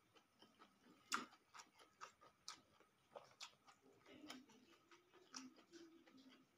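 Faint eating sounds: scattered wet clicks and smacks of chewing rice and omelette, the sharpest about a second in.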